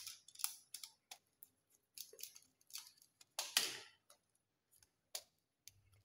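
Scattered small clicks and scrapes of a screwdriver turning a terminal screw on a plastic two-gang light switch as the wire is clamped, with the switch and wire handled. The loudest is a short scrape about three and a half seconds in.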